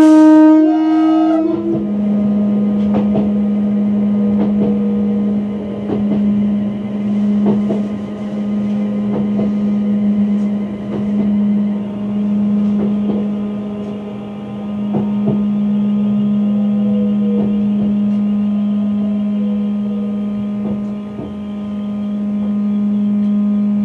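Class 350 Desiro electric train sounding its horn once, a single pitched blast about a second and a half long, at a whistle board. It then runs on with a steady hum and scattered clicks.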